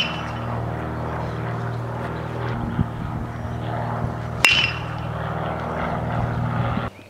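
Metal baseball bat striking pitched balls: a sharp ping with a short ring. One hit's ring is just dying away at the start, and a second hit lands about four and a half seconds in, over a steady low hum that cuts off near the end.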